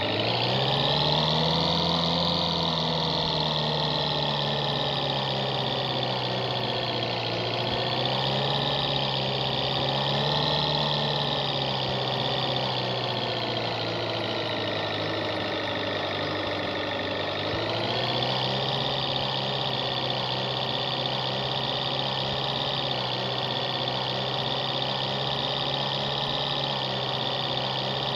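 Off-road jeep's engine running, revving up at the start, then rising and falling in speed a few times before picking up again about two-thirds of the way through and holding a steady pitch.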